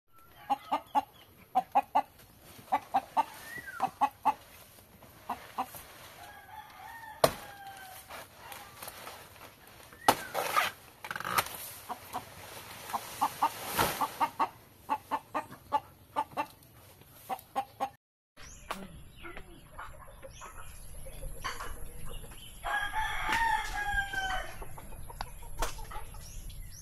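Chickens clucking in short repeated calls, then, after a cut just past the middle, a rooster crowing once in a falling call about two seconds long, with a steady high whine underneath.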